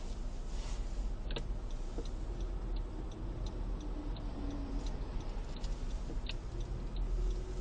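Turn-signal indicator ticking at a steady rate of about one tick every 0.7 s over a continuous low car-cabin rumble of engine and road noise.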